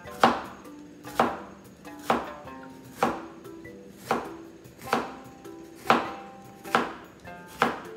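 Kitchen knife slicing a bitter melon (goya) into pieces on a cutting board: nine sharp chops at an even pace of about one a second.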